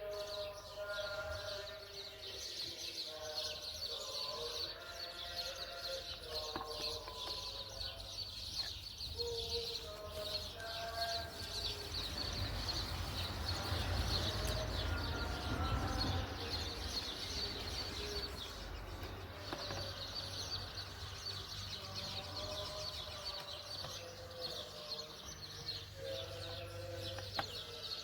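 Outdoor ambience: birds calling in short repeated notes over a steady high-pitched buzz. For several seconds in the middle a louder rushing noise rises over it and fades back.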